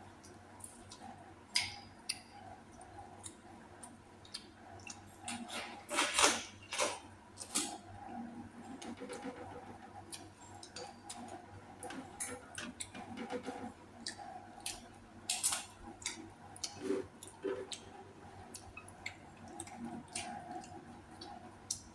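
Close-up eating sounds: irregular sharp clicks and taps of utensils against dishes, with chewing, and a few louder clacks about six seconds in and again midway.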